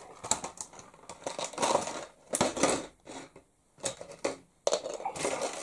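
Small hard plastic toy parts clicking and clattering irregularly as they are handled and tried together.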